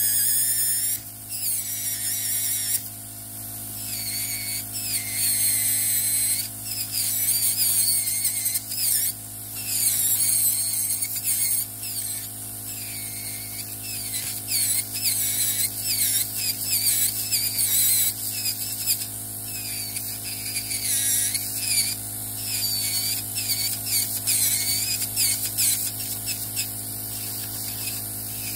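Electric podiatry nail drill grinding down a thick toenail with a rotary burr. A steady motor hum runs under a high whine whose pitch dips and recovers as the burr bites into the nail.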